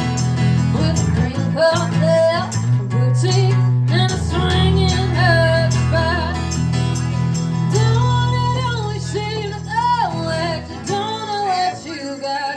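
A music performance: a female voice sings a pop song over guitar and a sustained low bass part.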